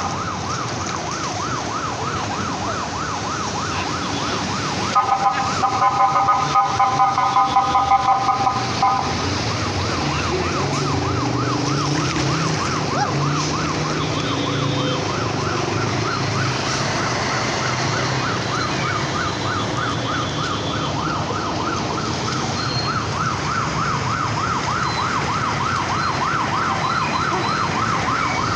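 A siren warbling rapidly up and down without a break. From about five to nine seconds in, a vehicle horn honks in quick repeated blasts over it, and a low engine rumble of passing traffic comes in after that.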